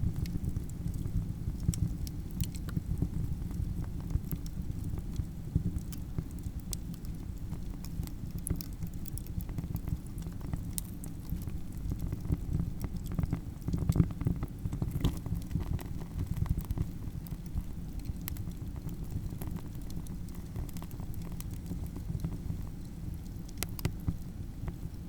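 Campfire crackling: irregular sharp pops and snaps over a steady low rumble of burning, with a few louder pops around the middle and near the end.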